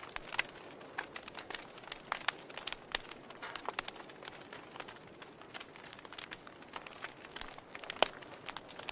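Wood fire crackling in a fireplace: irregular sharp snaps and pops over a soft hiss, with one louder pop about eight seconds in.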